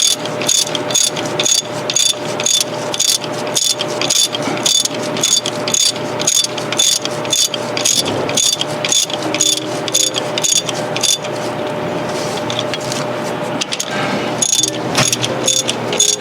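Hand ratchet clicking in quick, even strokes, about three to four clicks a second, as cylinder head bolts are run down by hand rather than with an impact gun. The clicking thins out for a few seconds near the end, then picks up again.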